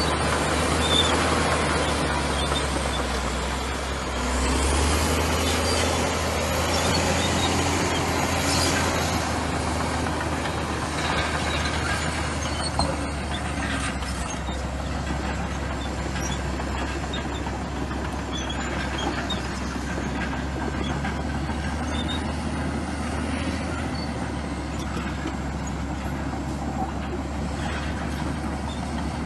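Diesel engine of a Komatsu crawler bulldozer running steadily under load, a continuous low drone, with a faint high whine that rises and falls twice. A single sharp knock sounds about 13 seconds in.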